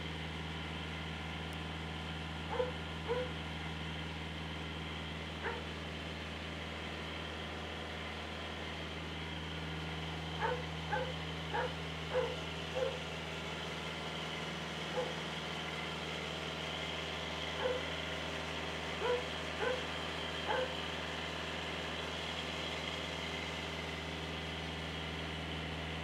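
A dog yipping and barking in short single yelps, about a dozen of them, several in quick succession near the middle, over a steady low hum.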